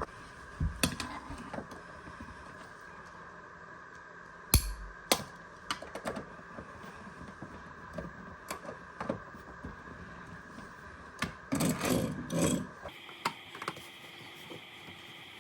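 Irregular clicks and knocks of hand work at the base of a refrigerator while it is raised on a wedge pump and its leveling feet are adjusted. Sharp knocks about four and a half and five seconds in, and a quick run of knocks near twelve seconds, over a steady hum that shifts higher in pitch about thirteen seconds in.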